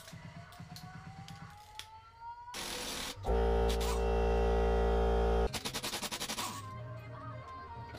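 Cordless impact wrench hammering on the crank pulley bolt of a Toyota 1UZ-FE V8. It runs as a loud, continuous rattle for about two seconds near the middle, then breaks into a shorter run of separate rapid blows before stopping. The crank pulley bolt is hard to break loose.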